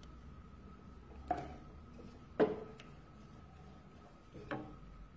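A wooden spoon knocking against the side of a stainless-steel pot of tomato sauce while it is stirred. Three separate knocks, each with a short ring: about a second in, about halfway (the loudest), and a fainter one near the end.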